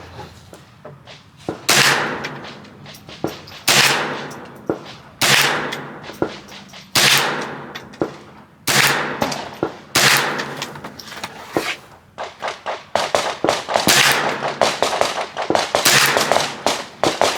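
Gunshots: a loud report about every two seconds, each followed by a short echo, then a quicker run of quieter cracks mixed in with further shots over the last few seconds.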